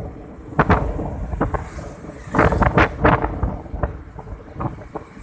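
Wind buffeting the microphone of a moving two-wheeler in irregular gusty thumps, over a steady low road and engine rumble.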